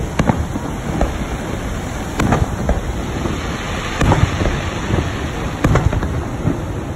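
Aerial fireworks shells bursting every second or two, sharp bangs that trail off in a short rumble, over a steady rushing background noise.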